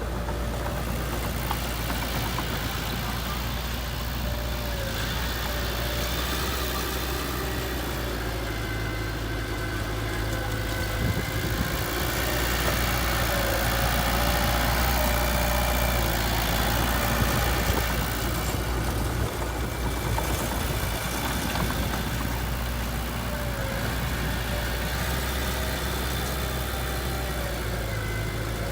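Heavy machinery diesel engines running steadily, growing somewhat louder about halfway through and then settling back.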